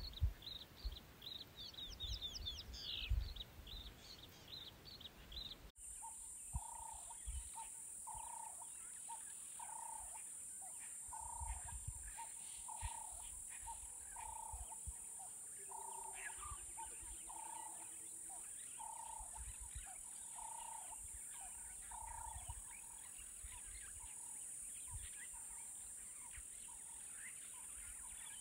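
Bush ambience. Birds chirp for the first few seconds. After an abrupt change, a steady high-pitched drone begins, with an animal's low call repeated a little over once a second for about thirteen seconds, then thinner chirps and drone.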